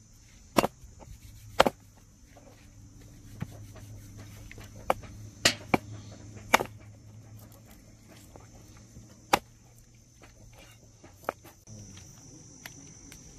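A cleaver chopping goat meat on a plastic cutting board: sharp, irregular chops, about nine of them, some in quick pairs.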